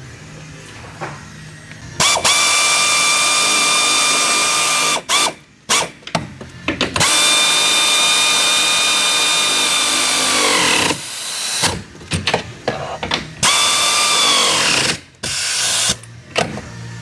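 A power tool running in three long runs with short blips between them. Its pitch stays steady while it runs, then winds down each time it is released.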